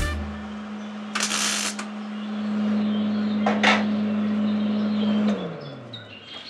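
Hobart MIG welder laying a weld on thin sheet metal: a steady hum under a crackling hiss, with a brighter flare of hiss about a second in. About five seconds in the arc stops and the hum slides down in pitch and fades.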